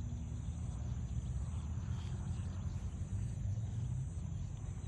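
Wind buffeting the microphone: an uneven low rumble that rises and falls in gusts, with a faint steady high hiss above it.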